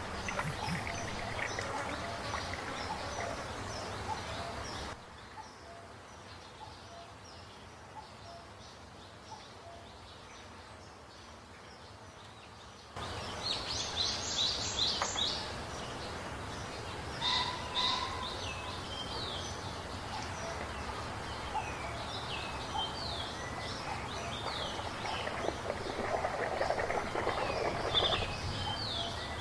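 Water sloshing and splashing in a plastic tub as toys are scrubbed by hand, with many small birds chirping in the background. The audio drops quieter for several seconds near the start, and the chirping is densest around the middle.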